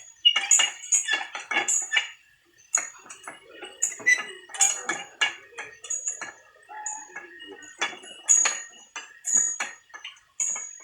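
Irregular sharp metallic clinks and knocks, several a second, many with a brief high ring, like metal parts being struck or handled.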